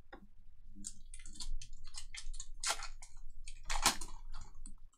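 Foil wrapper of a trading-card pack crinkling and tearing as it is ripped open by hand, in a run of sharp crackles, loudest about three and four seconds in.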